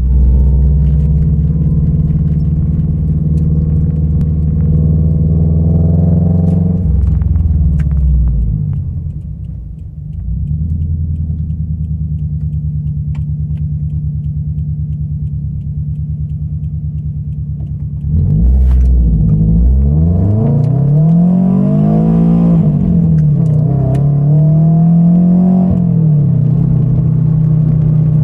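Subaru BRZ's flat-four boxer engine, run with a catless header and straight-piped exhaust, heard from inside the cabin: a loud, steady low drone. About 18 seconds in, the revs rise and fall several times before settling again.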